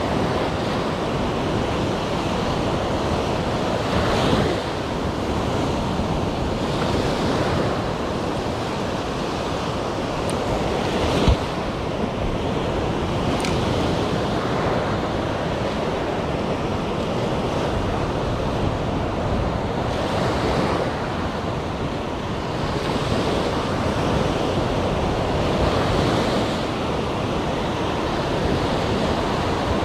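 Rough Mediterranean surf breaking and washing up a sandy beach in a steady rush that swells and eases with the waves, with wind buffeting the microphone. A single sharp click sounds about eleven seconds in.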